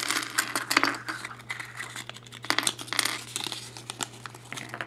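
Small plastic parts of a Kinder Surprise toy clicking and rattling as they are tipped out of the yellow plastic capsule, with the folded paper leaflet crinkling as it is pulled out and unfolded: a run of irregular light clicks and rustles.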